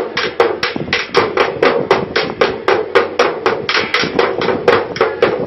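A child's toy drum beaten rapidly and steadily, about four to five hits a second, each hit with a short hollow ring.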